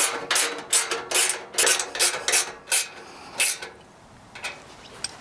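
Hand tool tightening 10 mm nuts on a wood chipper's discharge chute: a run of short strokes, about three a second, that stops about three seconds in, with one more stroke a little later and light handling after.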